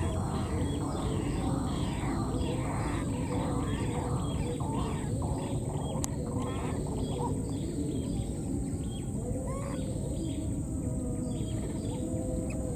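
Baby macaque calling in a run of short squeaks and soft arching coos, over a steady low rumble and a constant thin high tone.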